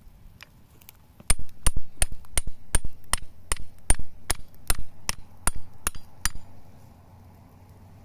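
A hatchet head hammering a wooden stake into the ground, about fourteen sharp knocks at a steady two to three a second, each with a bright metallic ring, stopping after about five seconds.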